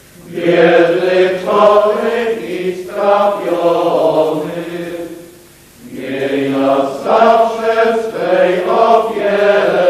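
Small choir of men singing a chant-like hymn, sung in two long phrases with a short breath pause about halfway through.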